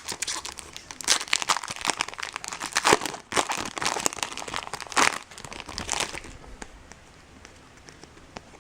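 Crinkling and rustling of a Bowman Chrome card-pack wrapper and cards being handled, in quick crackly strokes that stop about six seconds in.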